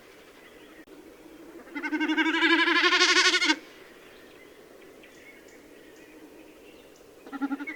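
Common snipe drumming: the display-flight sound made by the bird's outer tail feathers, a fast-pulsing hum lasting about two seconds that swells and brightens as it goes. A second burst starts near the end.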